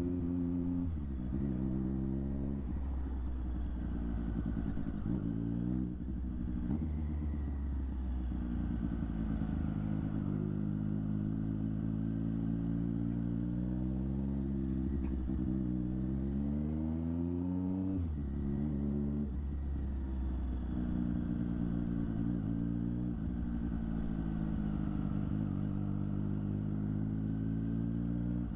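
Triumph Street Triple 765 RS's three-cylinder engine through a Delkevic aftermarket exhaust, riding under way. The revs climb and then drop sharply several times, about a second in, around six seconds in, and again near eighteen seconds.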